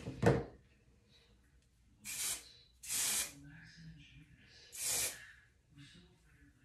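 Three short spritzes of a hair-product spray onto a section of hair, each a brief bright hiss, about two, three and five seconds in.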